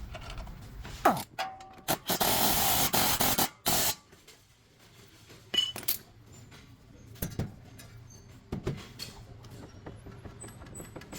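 Metal tools clinking and knocking, with a loud burst of even, hiss-like noise about two seconds in that lasts about a second and a half, then a few scattered clicks.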